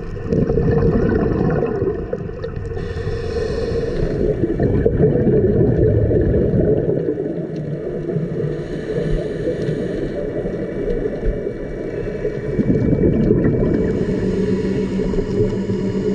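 A scuba diver's breathing heard underwater through the camera housing: muffled gurgling rumbles of exhaled bubbles from the regulator, alternating every few seconds with a higher hiss of inhalation.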